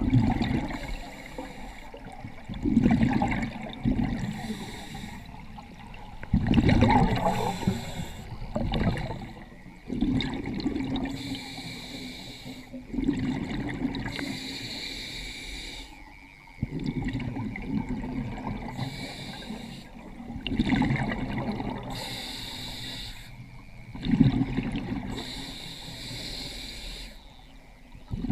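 Scuba diver breathing through a regulator underwater: a hissing inhale, then a loud bubbling burst of exhaled air, repeating about every three to four seconds.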